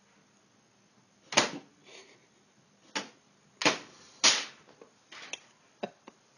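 A cat batting at printed paper sheets in a printer's output tray: a run of sharp paper slaps and rustles, the first about a second and a half in and the loudest.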